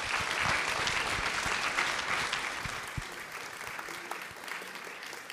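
Audience applauding in a hall at the end of an interview, the clapping slowly fading.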